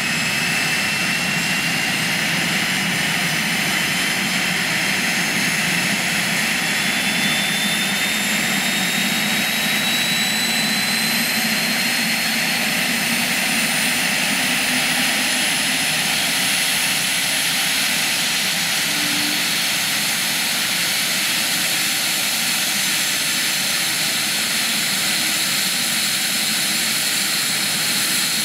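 Eurocopter EC 155 helicopter's twin turboshaft engines running up on the ground, the main rotor spinning up. A turbine whine rises slowly and steadily in pitch throughout, over the steady rush of the engines and rotor.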